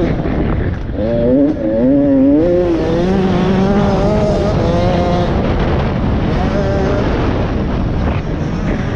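KTM 85 cc two-stroke motocross bike's engine being ridden hard, its revs climbing in steps through the gears, held high for a couple of seconds, then dropping off near the middle and picking up again. Heard from a helmet-mounted camera, with wind rushing over it.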